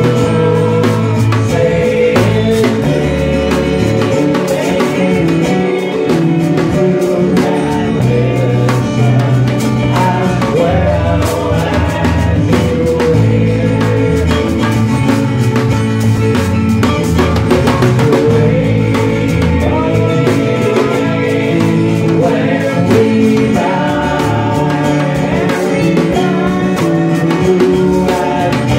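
Live band playing a song, heard from beside the drum kit: drums and cymbals close up, electric bass underneath, and a man singing the lead.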